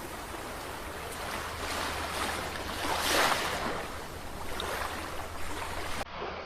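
Ocean waves washing onto the shore, a steady rush of surf that swells to its loudest about three seconds in. Near the end the sound thins out and fades away.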